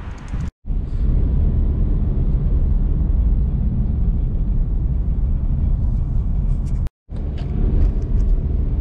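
Steady low road and engine rumble heard from inside the cabin of a lifted 8th-generation Honda Civic on oversized tires, driving at street speed. The sound cuts out briefly twice.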